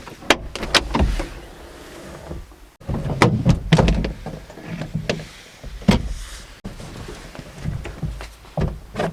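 Irregular knocks, clicks and low thumps of someone moving about and working the doors and latches of a ute's rear sleeping canopy while getting up.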